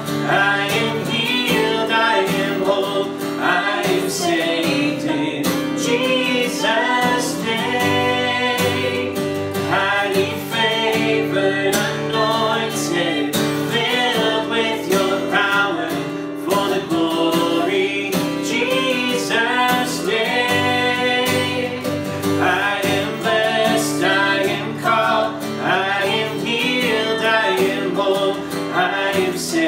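A woman and a man singing a worship song together, accompanied by a strummed acoustic guitar.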